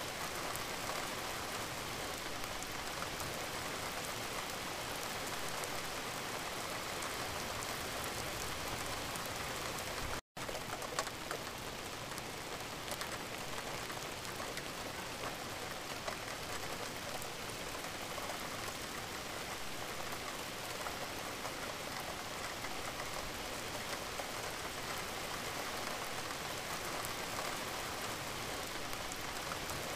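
Recorded rain ambience added as a background track: a steady, even rain sound with no other sound standing out. It cuts out for a split second about ten seconds in.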